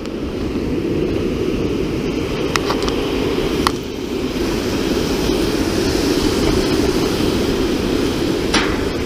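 Steady rushing of water pouring through a dam's outlet gate into the river below, with a few short sharp clicks about two and a half, three and a half and eight and a half seconds in.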